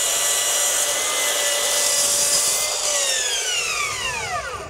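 Bosch PROFACTOR 18V cordless 12-inch glide miter saw's brushless motor at speed level 1, one step above eco mode, with the blade cutting through a 2x12: a steady whine over a rush of cutting noise. The cutting noise stops a little under three seconds in, and the whine then falls in pitch as the blade spins down.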